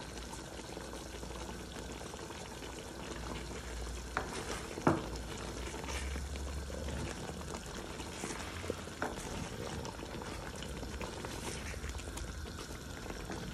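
Milky chicken curry bubbling in a pot as it cooks down to thicken, with a few scattered light knocks, the loudest about five seconds in.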